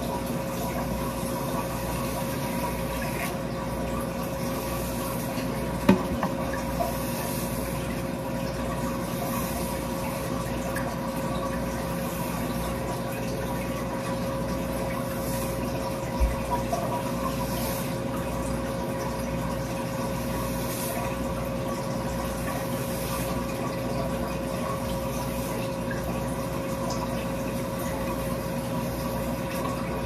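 Steady rush of running water with a constant hum under it. A couple of brief light knocks, one early and one about halfway.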